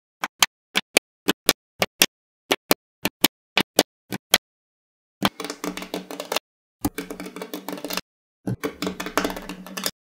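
Small magnetic steel balls snapping together: about sixteen sharp clicks, coming in pairs, then three stretches of rapid clattering and clicking as strips of balls are pressed onto a block of balls.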